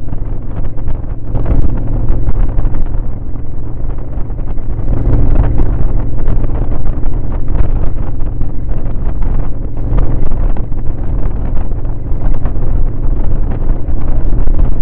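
Vehicle engine drone held at a steady cruising speed on a dirt track, with heavy wind buffeting the microphone in irregular gusts.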